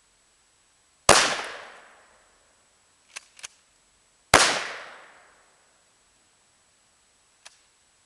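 Two 12-gauge shotgun blasts about three seconds apart, each ringing out for about a second, with two quick clicks between them and a faint click near the end.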